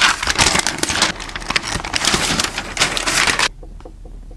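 Crackling rustle and tearing of packaging as a MacBook Air box is opened, stopping abruptly about three and a half seconds in.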